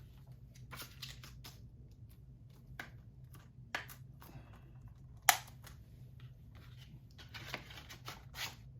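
Plastic Blu-ray case and discs being handled: scattered light clicks and rustling, with one sharp click about five seconds in.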